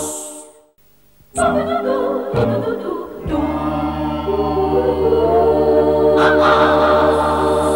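Theme music for a TV drama title sting: sustained synthesizer chords with a group of voices singing together. It cuts out briefly just after the start and comes back about a second and a half in. A high cymbal swell rises near the end.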